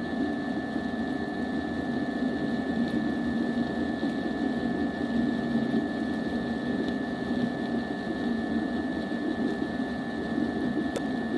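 A machine running steadily: a dense hum with a constant high whine over it.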